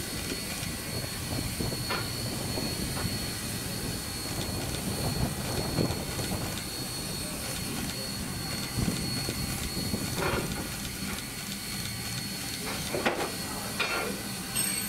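1942 Baldwin S160 2-8-0 steam locomotive standing in steam as it is turned on a turntable: a steady hiss over a low rumble, with a thin high whine held throughout and a few short louder sounds about ten and thirteen seconds in.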